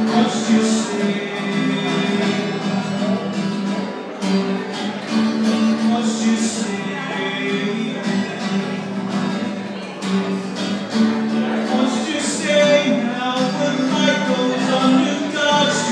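Acoustic guitar strummed live, with a man singing along at times.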